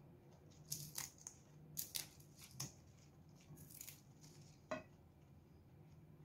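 Raw leafy greens being bitten and chewed close to the microphone: a string of short, crisp crunches in the first five seconds.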